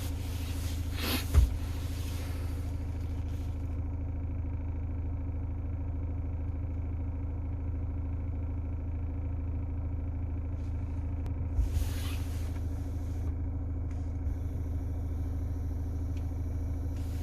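Steady low hum of a car engine idling, heard from inside the Mazda CX-5's cabin. There are a couple of brief knocks, one about a second in and another about twelve seconds in.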